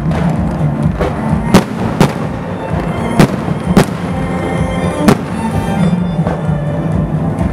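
Fireworks shells bursting in sharp bangs, about five of them in the first five seconds, over music playing steadily in the background.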